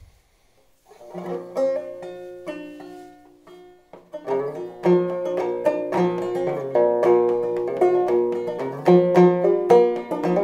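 1890 J.B. Schall-built H.C. Nelson open-back banjo played clawhammer style in double B-flat tuning: a few slow ringing notes start about a second in, then steady rhythmic clawhammer picking from about four seconds in.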